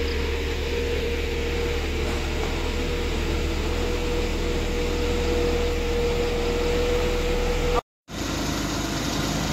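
Heavy-equipment diesel engine running steadily: a low hum with a steady whine above it. The sound cuts out for a moment near the end, then resumes.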